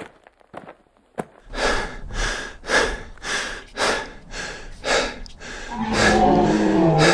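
Rapid rhythmic breathing, about a breath and a half each second, like panting. Near the end it turns into a voiced groan that falls in pitch.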